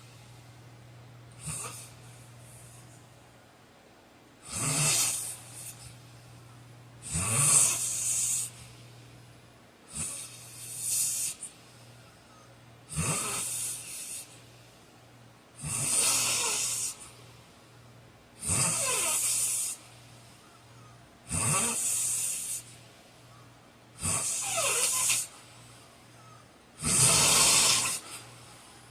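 A heavyset man snoring loudly in his sleep, with about ten snores at an even pace of one every two and a half to three seconds. Each snore lasts about a second, a low note that slides down in pitch.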